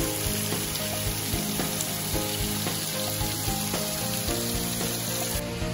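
Steady hiss and splash of many thin streams of water falling over rock ledges into shallow pools, with background music of sustained notes under it.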